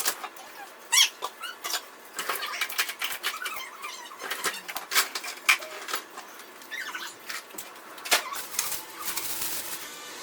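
Plastic shopping bags rustling and crinkling as they are handled, with scattered sharp knocks and clicks from items being moved. A denser stretch of rustling comes near the end.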